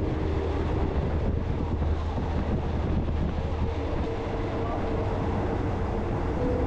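Passenger train running steadily along the track, heard from inside an open-windowed carriage: an even rumble of the wheels on the rails with a low hum underneath.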